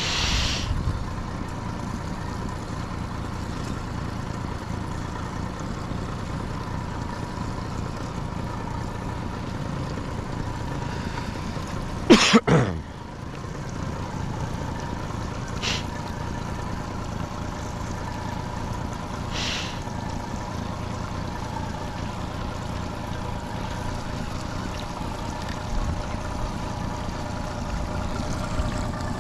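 Honda 30 hp four-stroke outboard motor running steadily at trolling speed. About twelve seconds in, a loud, short sound sweeps steeply down in pitch, and a couple of brief hissing sounds come later.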